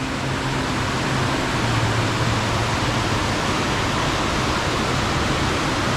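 Loud, steady rush of fast-flowing water running high after a storm, with a faint low steady hum underneath.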